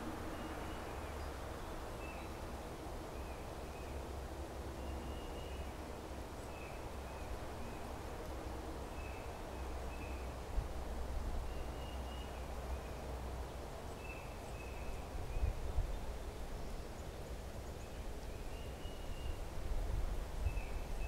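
Outdoor ambience: a steady low rumble that swells in gusts near the end, with a small bird's short high chirps repeating every second or two.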